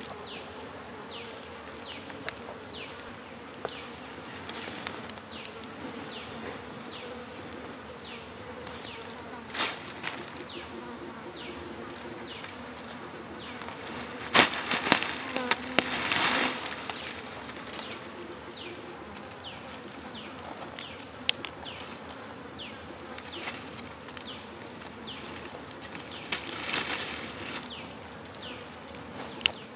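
Insects buzzing steadily, with a short, high, falling chirp repeating about twice a second. A louder burst of rustling and crackling comes about halfway through.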